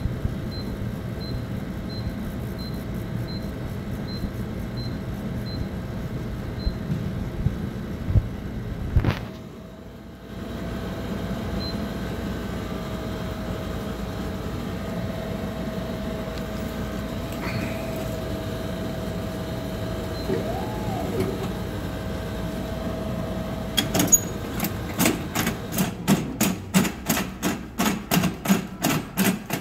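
Royal Vision bottle-drop vending machine running with a steady hum and a faint steady tone. Near the end comes a quick run of regular sharp clicks, about two a second.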